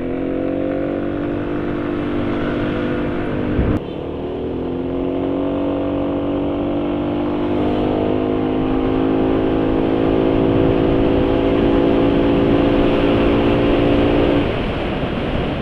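Yamaha NMAX scooter's single-cylinder engine running with a snoring intake noise from the air filter box, whose resonator has snapped off and lets air in unfiltered. There is a brief break with a click about four seconds in. After it the pitch creeps slowly up, and the sound stops about a second before the end.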